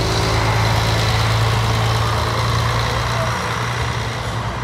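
City bus diesel engine driving off, a steady low engine drone that slowly fades as the bus moves away.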